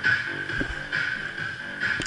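Electronic music with a high tone that swells a little faster than once a second.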